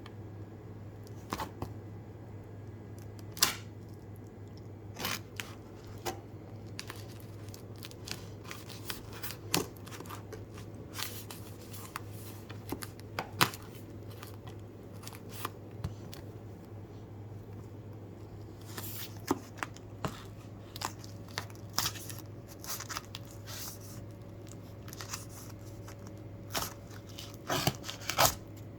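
Cardboard box and packaging being opened by hand: scattered clicks, rustles and tearing sounds, with a steady low hum underneath.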